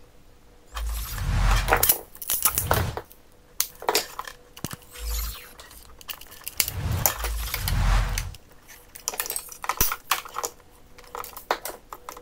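Clicks, small clinks and rustles of hands working electrical wires and a plastic wall-socket module with a screwdriver, broken by several dull thumps, the loudest about a second in and again around seven to eight seconds in.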